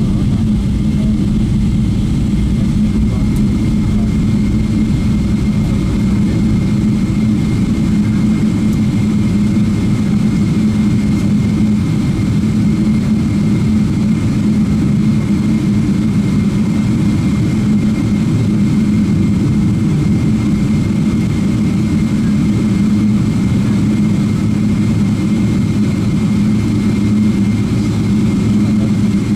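Boeing 777-300ER's GE90-115B turbofan engines running at taxi power, heard from inside the cabin: a steady low rumble with a thin, steady high tone above it.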